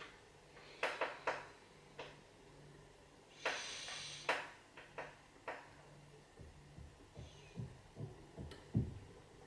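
Picking tools and an Assa Abloy Arrow mortise lock being handled: a string of sharp metallic clicks, a brief scrape about three and a half seconds in, and a few soft low knocks near the end.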